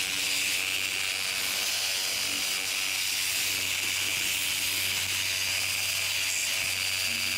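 Reciprocating saw with a metal-cutting blade cutting through metal near a weld, running steadily.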